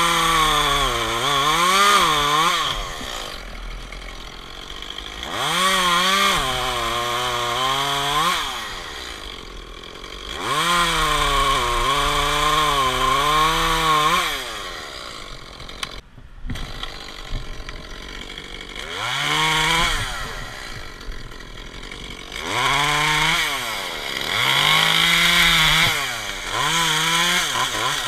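Echo CS-271T top-handle two-stroke chainsaw cutting maple limbs: several surges of a few seconds each at full throttle, the engine's pitch wavering as the chain loads up in the wood, falling back to a quieter idle between cuts.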